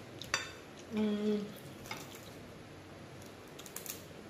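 Crispy fried pork chop crackling as it is pulled apart by hand: a few sharp cracks and small crunches, with a short hummed "mm" about a second in.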